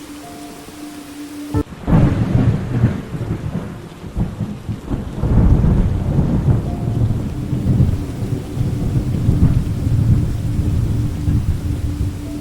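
Thunderstorm: about two seconds in, thunder breaks in suddenly, then long low rolling rumbles follow over steady rain.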